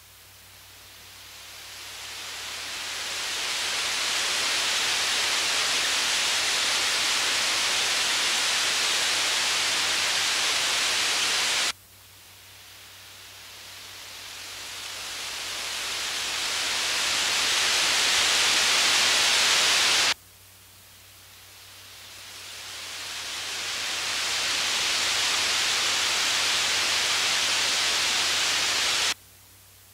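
High-frequency test noise from a Dolby Stereo theatre listening test film: a high hiss played three times, each swelling up over a few seconds and then cutting off abruptly, for the left, centre and right loudspeakers in turn, over a faint steady hum. It checks the high-frequency speaker units and power amplifiers, where clicking or tearing sounds would point to a faulty unit or amplifier.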